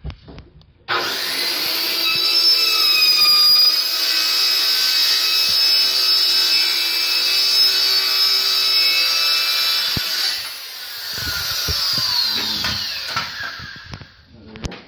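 Cordless circular saw cutting plywood: it starts abruptly about a second in, runs with a steady high whine for about nine seconds, then the blade winds down with a falling whine after the trigger is released.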